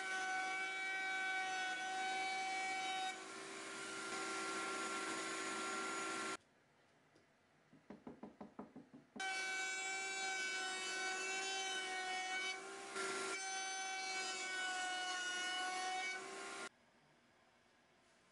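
Router table spinning a 3/8 inch dovetail bit: a steady high motor whine with the hiss of the bit cutting MDF as pieces are fed through. It runs in two long passes, separated by a quiet gap with a brief run of quick light taps, and stops sharply shortly before the end.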